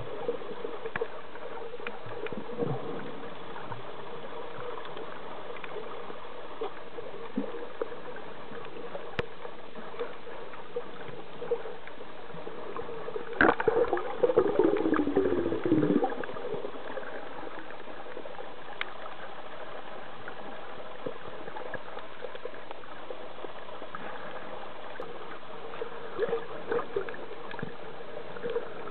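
Muffled underwater ambience picked up by a submerged camera: a steady hiss with scattered small clicks. About halfway through comes a louder stretch of bubbling and gurgling, lasting two or three seconds.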